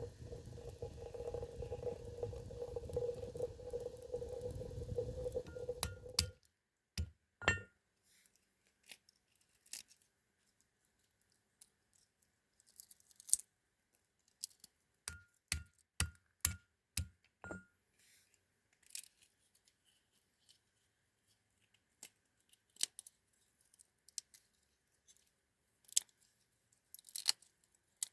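A steady hiss with a low hum cuts off abruptly about six seconds in. Then come scattered light clicks and clinks of cooking utensils and dishes being handled, some with a brief ringing tone.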